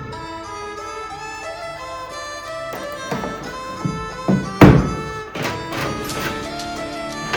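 Instrumental background music: a sustained melody with several drum hits in the second half, the loudest a little past the middle.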